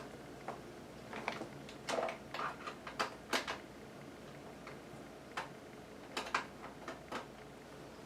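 Scattered light clicks and plastic knocks from handling a computer mouse and its USB plug as one mouse is swapped for another, irregular and faint, with a small cluster between about two and three and a half seconds in.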